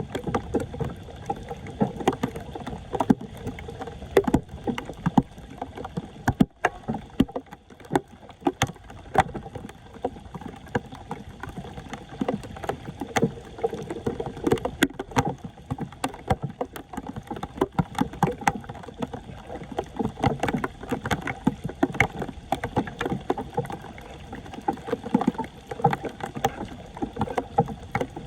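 Floodwater splashing and sloshing in irregular, repeated strokes as it is stirred and worked by hand or tool around a clogged street drain.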